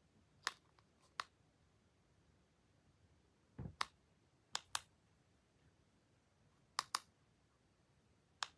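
Sparse sharp clicks, several in quick pairs, with one duller knock about three and a half seconds in.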